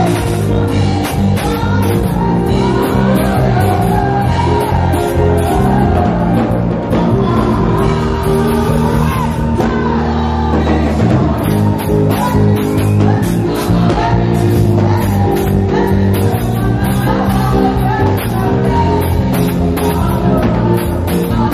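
Live church band playing upbeat praise music on electronic keyboards and a drum kit, with voices singing along and some shouting. The drums drop out briefly about halfway through over a held low note, then come back in.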